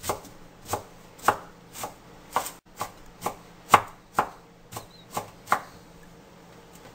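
Large kitchen knife chopping shredded cabbage on a wooden cutting board, about two knocks of the blade on the board each second. The chopping stops about five and a half seconds in.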